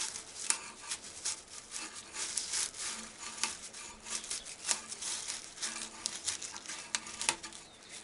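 Cured tobacco leaves rubbing, crackling and scratching as they are drawn backwards and forwards through a stem removal tool to strip the leaf from the stem, in an irregular run of short scrapes and clicks.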